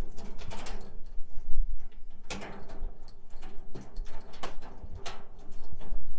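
A key on a metal chain being worked in a doorknob lock, with a series of sharp metallic clicks and rattles as the key is turned and the knob tried.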